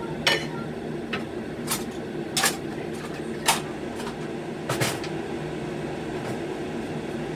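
Several sharp clicks and clacks of kitchen items being picked up and set down, the last a quick double knock about five seconds in, over a steady low appliance hum.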